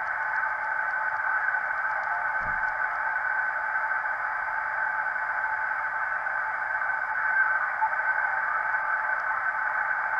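Homebrew SSB transceiver's receiver putting out steady band hiss and static through its speaker. The noise is confined to a narrow voice-width passband, with no voice on it.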